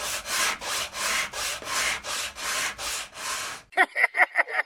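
Rhythmic rubbing strokes, about three a second, like sanding or scrubbing a surface, stopping near the end, where a quick run of short high squeaks follows.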